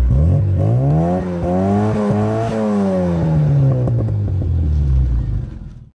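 Car engine revved up and then let back down, the pitch climbing for a couple of seconds and falling away again, cut off suddenly near the end.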